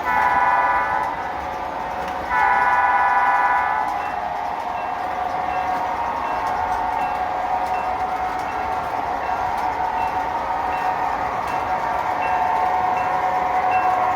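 Model diesel locomotive's onboard sound system on an MTH Premier O-gauge train sounding two horn blasts, the second longer, then a steady diesel engine running sound.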